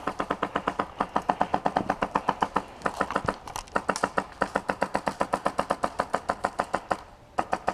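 Airsoft rifle, a Classic Army G3 run on a Polar Star Fusion Engine, firing rapid automatic shots at about eight a second, with a brief break about three seconds in, then stopping near the end.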